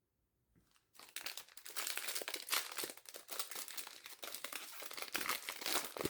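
Foil wrapper of a Flesh and Blood booster pack crinkling as it is handled, starting about a second in and going on irregularly.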